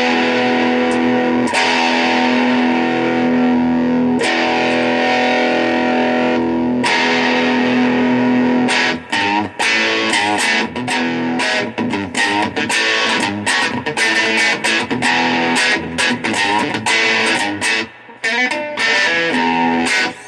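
DIY Telecaster-kit electric guitar played through a 1967 General Electric hi-fi converted to a tube guitar amp: a few chords struck and left to ring, then a quicker run of picked notes and short chords from about nine seconds in, stopping just before the end.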